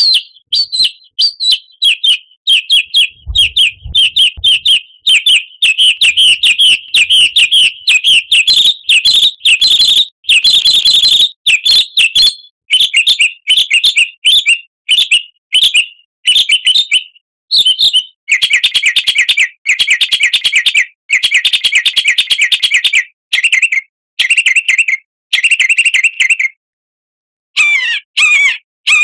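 Songbird singing non-stop: a rapid string of sharp chirps, then long fast trills, with lower sweeping notes near the end.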